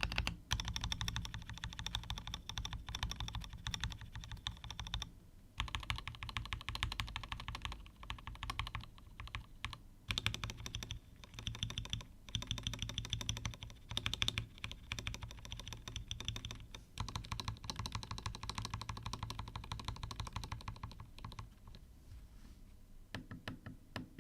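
Typing on an Akko 5075S mechanical keyboard in stock, unmodded form, with Gateron Milky Yellow Pro linear switches and XDA-profile keycaps. Quick continuous keystrokes come in runs with a few short pauses, thinning to scattered single strokes near the end.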